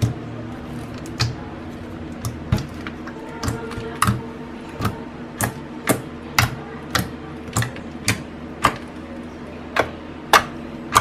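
Fingertips poking a clear slime tinted red with pigment powder, each poke making a sharp click or pop, about two a second.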